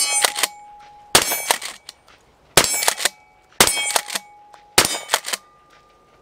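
Remington 870 Express Tactical 12-gauge pump-action shotgun fired five times, a shot a little more than a second apart. Each shot is followed by the quick clack of the pump being worked, and after several shots a struck steel target rings.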